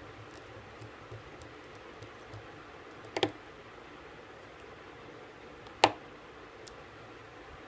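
Small tools and watch parts clicking as they are handled on a work surface: a sharp double click about three seconds in, a louder single click near six seconds, and a few faint ticks, over a steady hiss.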